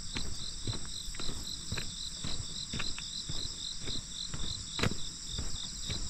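Walking footsteps on a wet asphalt lane, about two a second, over a steady chorus of insects in the roadside grass with a fast pulsing trill.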